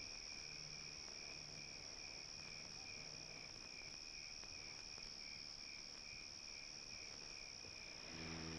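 Crickets chirping in a steady, continuous high trill as night ambience. Soft music comes in near the end.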